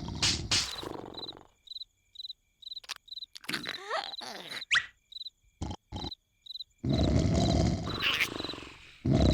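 Loud cartoon snoring from an animated larva character, which breaks off about a second and a half in. In the quiet gap, crickets chirp at an even pace and a few short squeaks and clicks sound. The loud snore starts again near the end.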